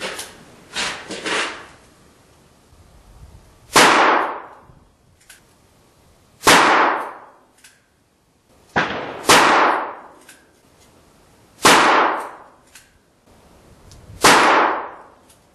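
Five gunshots from a firearm chambered in .32 H&R Magnum, firing hand-loaded 60-grain bullets at a steady pace about two and a half seconds apart, each a sharp report with a short echoing tail. Fainter pops come in the first second and a half.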